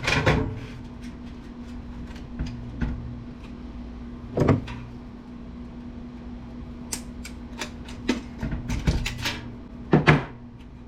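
Handling a steel desktop PC case and its parts while the motherboard is taken out: scattered sharp knocks and clicks of metal and plastic, with a cluster of quicker clicks and a double knock near the end, over a steady low hum.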